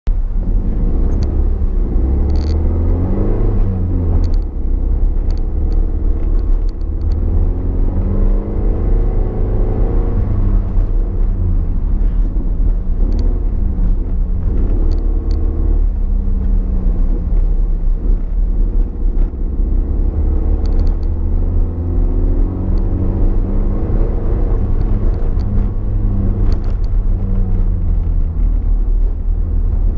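Toyota MR2's engine heard from inside the cabin on a lap, revving up and easing off again and again as it pulls through the gears and lifts for corners, over a heavy low road rumble.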